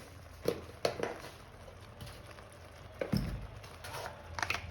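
Metal spoon clinking and knocking against a cooking pan a few times while spices are added, with a duller thump about three seconds in.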